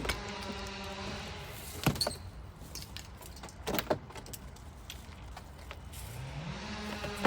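An electric power tool's motor runs briefly and winds down. Sharp knocks follow about two seconds in and again about four seconds in. Near the end the motor spins up in pitch and runs steadily.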